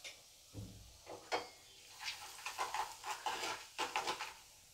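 Metal ladle stirring ground spices around in hot oil in a metal kadai, scraping and knocking against the pan with a light sizzle: a few strokes at first, then a quicker run of strokes in the second half.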